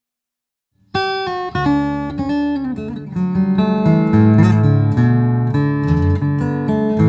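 Acoustic guitar played with plucked notes over sustained bass notes, heard through its Trance Audio Amulet piezo pickup and a ToneDexter preamp that shapes the pickup sound to resemble a studio mic. The playing starts abruptly after silence about a second in.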